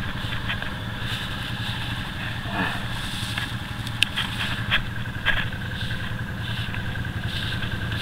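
ATV engine idling steadily, with a few sharp clicks about halfway through.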